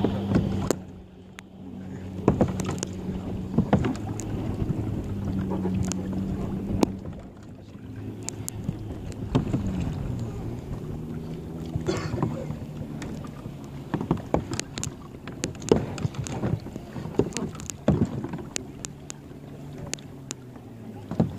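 Kayaks rafted together on the sea: scattered sharp knocks and clicks of paddles and plastic hulls bumping, over a steady low engine hum that dips in pitch about ten seconds in and settles again.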